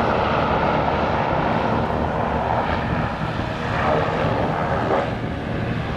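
Passenger hovercraft running across the water, its engines and twin ducted propellers giving a steady drone with a rush of air and spray.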